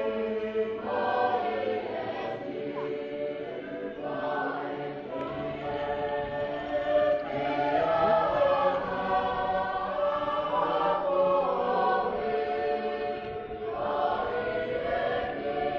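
A choir singing in harmony, many voices holding long notes that change together every second or two.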